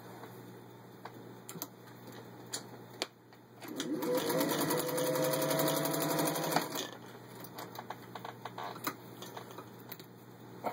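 Singer 201-2 sewing machine stitching through a 1/8 inch thick leather belt: it runs for about three seconds in the middle, its pitch rising as it comes up to speed, then stops abruptly. Scattered clicks and handling knocks come before and after the run.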